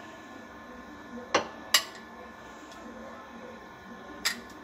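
A few sharp clinks of a serving utensil against dishes as thick custard is served out of the pan into bowls.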